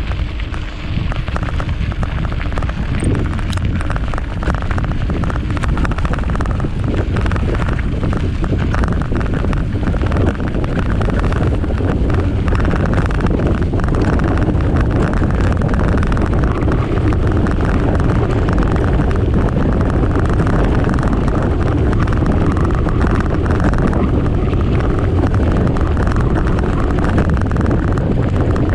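Steady, loud wind rumble on a helmet-mounted camera's microphone during a mountain bike ride, with the bike's tyres rolling and rattling over the track.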